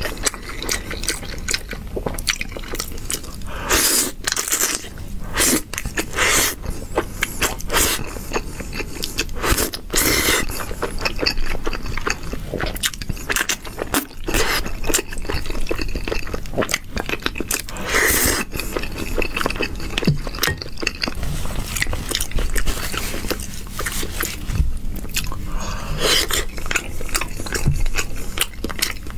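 Close-miked wet chewing and mouth smacks of a person eating noodles in a thick dark sauce, with chopsticks now and then scraping and clicking against the bowl.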